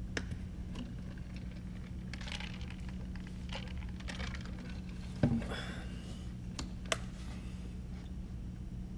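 Steady low hum with scattered faint clicks and taps, and one louder short knock about five seconds in.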